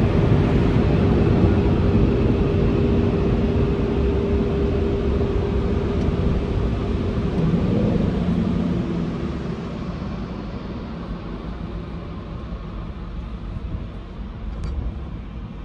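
Automatic car wash blowers running, a loud roar with a steady whine, heard from inside the car. The noise drops off about nine seconds in as the car leaves the wash.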